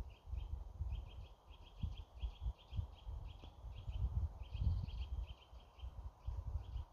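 A small songbird singing, a fast run of short, high chirps repeated several times a second with brief pauses. Under it a louder, irregular low rumble buffets the microphone.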